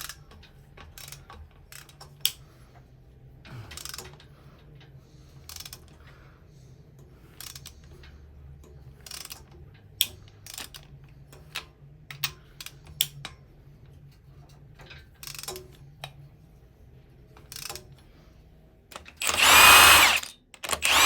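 Hand tools working on an engine: scattered clicks and knocks of a ratchet wrench and sockets as 12-point nuts are loosened. Near the end a power tool spins up with a loud whine for about a second, then starts again.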